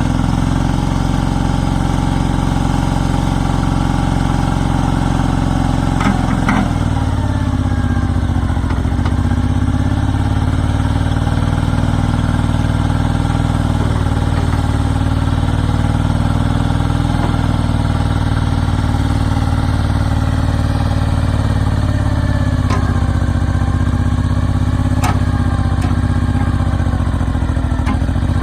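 Kubota L39 backhoe's diesel engine running steadily, its note shifting about six seconds in, with a few sharp clicks along the way.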